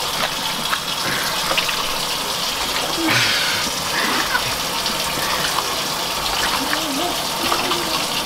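Raw chicken pieces squishing wetly as hands mix them in a bowl, with small irregular squelches and clicks over a steady hiss. A brief louder rush comes about three seconds in.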